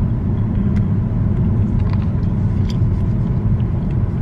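Steady low road and engine rumble heard from inside a moving car's cabin, with a few faint clicks.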